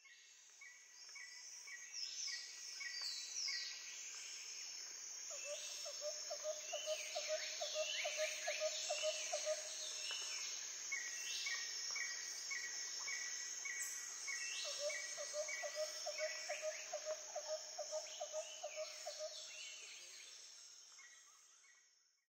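Nature ambience of several birds calling over a steady high insect drone, with a low rapid trill heard twice; it fades in at the start and fades out at the end.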